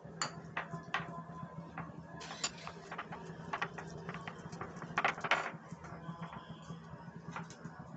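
Scattered light clicks and taps of fingers against a glass bowl while dry cornflour is pressed and scooped by hand, with a louder cluster of taps about five seconds in. A low steady hum runs underneath.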